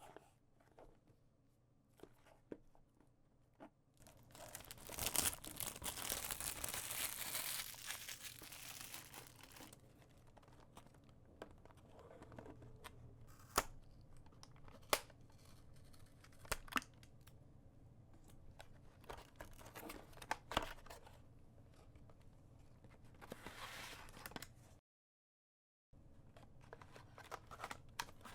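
Plastic wrapping on a trading-card booster box being torn and crinkled off, loudest for several seconds near the start, then softer rustling of packaging and box handling with scattered sharp clicks. The sound cuts out completely for about a second near the end.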